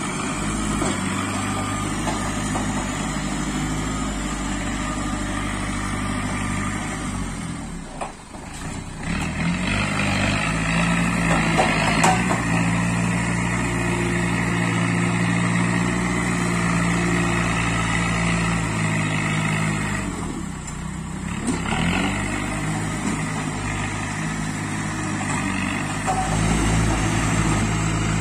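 JCB backhoe loader's diesel engine running hard as the machine pushes and levels soil with its front bucket. The engine eases off briefly about eight seconds in and again around twenty seconds in, then revs back up each time.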